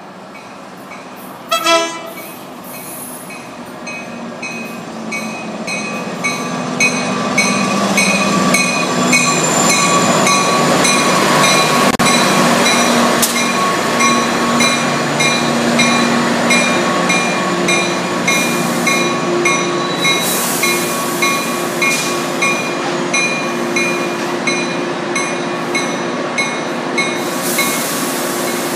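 Tri-Rail diesel locomotive and its double-deck commuter coaches pulling into the station, growing louder as the train rolls past, with a short horn blast about two seconds in. A bell rings steadily throughout.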